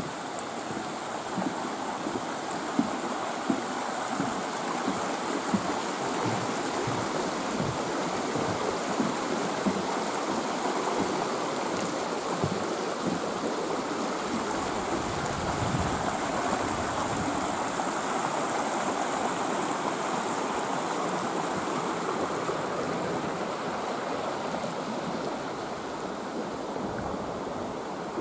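Shallow mountain stream running over rocks, a steady rushing of water. A few brief knocks stand out in the first half.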